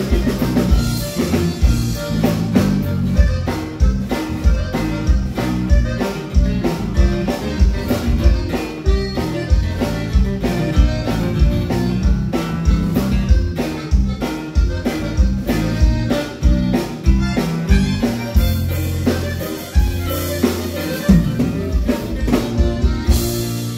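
A live conjunto band playing a Tex-Mex polka: button accordion, electric bass, acoustic guitar and drum kit over a steady beat. The beat thins out near the end.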